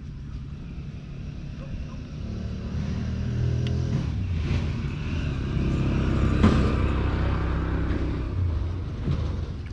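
A motor engine passing, growing louder to a peak about six and a half seconds in and then fading.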